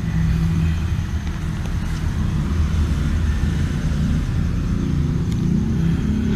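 A steady low rumble of background noise with no clear events in it.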